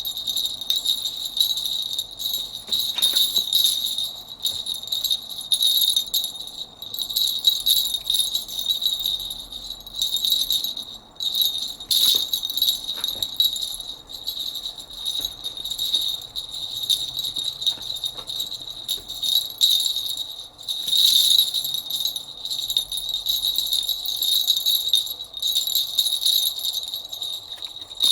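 A small jingle bell shaken in irregular bursts, ringing on and off without a steady beat.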